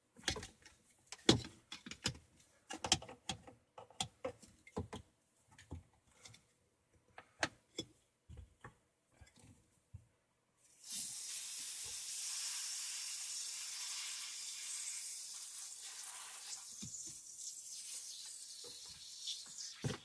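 Scattered clicks and knocks of hands and tools on plastic pipe fittings, then about ten seconds in a sudden steady hiss of pressurized water spraying out of a PVC shut-off valve on a sink supply line as it is undone, slowly weakening.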